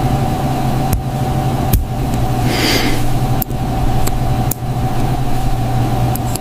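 A steady low mechanical hum with a faint higher tone held above it, and about five short, light clicks scattered through it.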